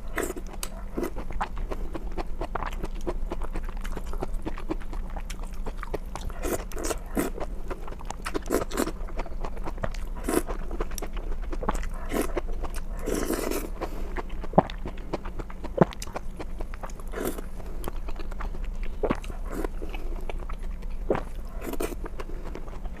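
Close-miked eating of beef tripe from spicy red-oil mao cai: crisp crunchy chewing and biting with wet mouth clicks, a run of short sharp crunches throughout.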